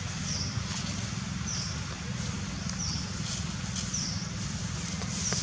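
Outdoor ambience: a short, high chirp repeats about once a second over a steady low rumble.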